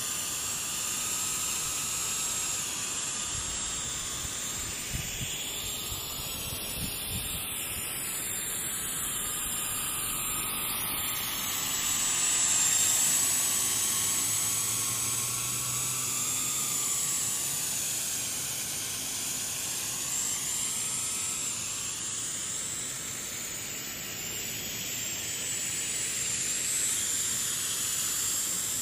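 Motors and propellers of a small quadcopter built with Lego motors, running steadily with a high whine and a rushing hiss. The hiss swells and fades slowly, swooshing up and down.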